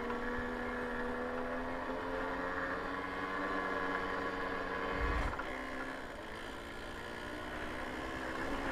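Babetta 210 moped's small two-stroke engine running steadily under way, its note rising slightly at first. About five seconds in there is a thump, and after it the engine note drops and gets a little quieter.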